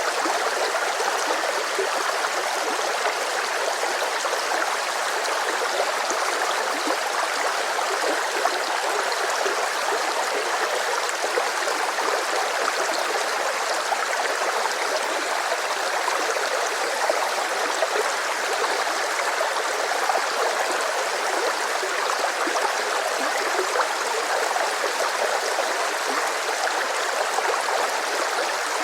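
Rushing river: a steady flow of water running and splashing over rocks, with no break or change in level.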